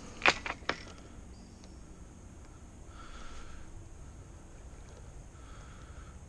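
A hooked carp splashing at the surface while it is played on a fishing pole: three sharp splashes in quick succession just after the start, then quieter water.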